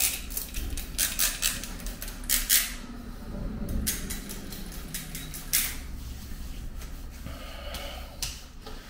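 Pump-spray atomizer on a glass aftershave bottle, pressed again and again: a series of short spray hisses, several in quick succession in the first three seconds, then a few more spaced out.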